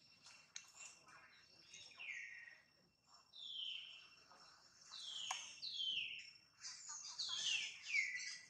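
Bird calling: a series of clear whistles, each sliding downward in pitch, coming closer together near the end. Faint steady high insect tones run behind, with a few short clicks in the first second.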